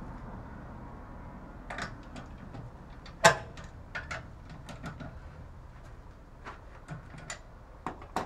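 Scattered light clicks and clinks of hand tools being worked at a car's front wheel, with one sharp, louder clink about three seconds in.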